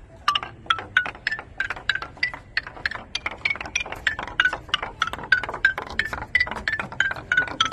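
A wooden ball rolling down a spiral of wooden blocks, knocking on block after block about three or four times a second. Each knock gives a short ringing wooden note, and the pitch changes from one note to the next.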